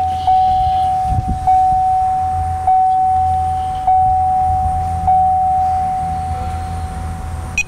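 Chevrolet Silverado 1500 dashboard warning chime ringing with the key in the run position: one steady pitched tone struck afresh about five times, a little over a second apart, then held and cut off near the end. A low steady hum runs underneath.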